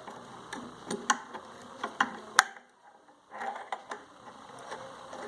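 Irregular metallic clicks and taps from sewing machine parts being worked by hand into place, a reassembled part that is hard to seat in its bracket; the sharpest click comes about two and a half seconds in.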